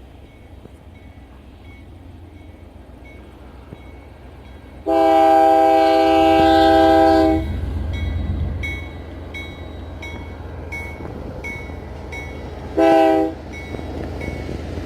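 Locomotive air horn sounding one long blast about five seconds in and a short blast near the end, over the low rumble of a slow-moving train. A railroad crossing bell dings steadily, about once every 0.7 seconds.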